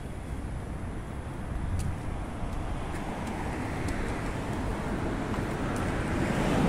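Street traffic noise, with a vehicle drawing nearer and growing louder over the last few seconds.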